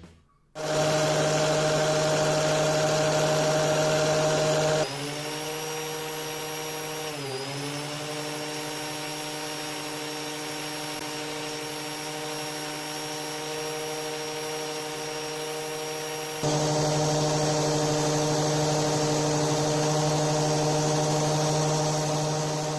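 Black and Decker angle grinder with a sanding disc running at speed, a steady high motor whine. About seven seconds in the pitch briefly sags and recovers; the level drops abruptly about five seconds in and jumps back up about sixteen seconds in, then fades out at the end.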